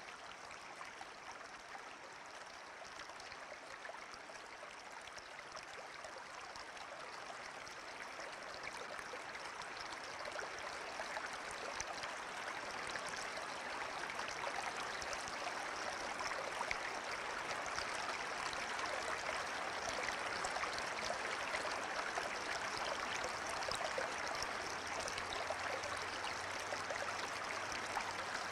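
Running water of a stream, a steady rushing and trickling that slowly grows louder.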